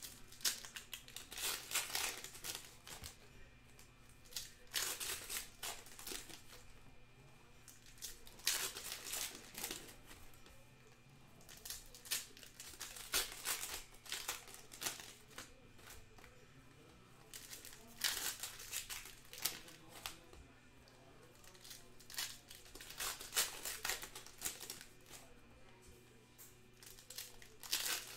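Foil trading-card packs being crinkled and torn open by hand, in bursts of crackling every few seconds with quieter handling in between.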